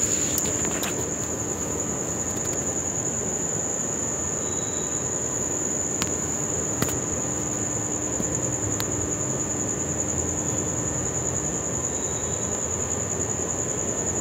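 Crickets trilling in one steady, continuous high-pitched note, over a low background rumble.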